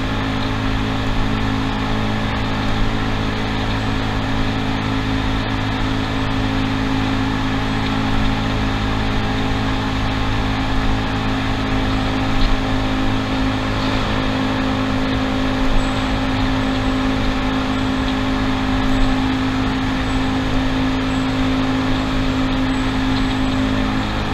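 Yamaha Cygnus scooter's single-cylinder engine running at a steady cruise with road and wind noise, riding through a road tunnel. The engine note holds an even pitch throughout.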